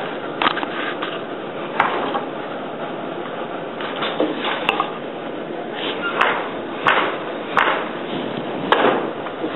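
Wooden floor loom at work: several sharp, irregularly spaced knocks and clacks as the beater and reed pack in the weft pick and the shed is changed.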